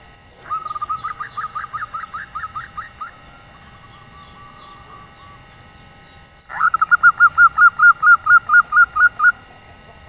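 Female zebra dove (perkutut) calling: two runs of rapid, evenly repeated cooing notes, each lasting about three seconds, the second run louder, with a faint softer trill between them.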